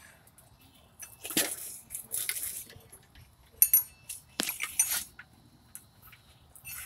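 Metal clinking and jangling in several short bursts, about a second apart, as hardware shifts during an engine installation.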